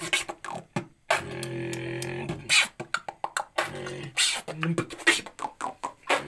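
Solo human beatboxing: sharp mouth-made kick and snare clicks woven around held, hummed bass tones, in a looping phrase that starts over about every two and a half seconds.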